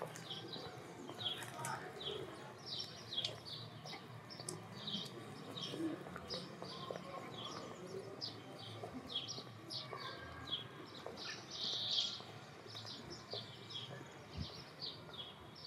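Small birds chirping busily, short high chirps several times a second over faint background ambience.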